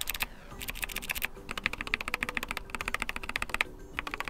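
Keychron K4 HE's magnetic Hall-effect linear switch, the F9 key, tapped rapidly over and over, about eight or nine clicks a second in runs with short pauses. The key sounds scratchy, which the owner finds is caused by plastic shavings lodged under the keycap.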